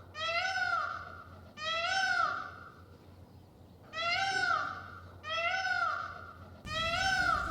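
Peafowl calling: five loud calls, each rising and then falling in pitch, repeated about every one and a half seconds with a longer gap in the middle.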